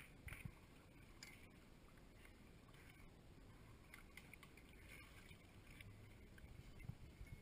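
Near silence: faint background hiss with a few soft clicks.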